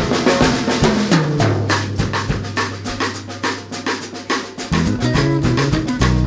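Background music: a drum kit keeping a steady beat over a bass line.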